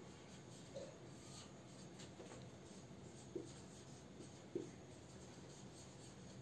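Marker pen writing on a whiteboard: a few short, faint squeaks as the letters go on, over a low steady room hum.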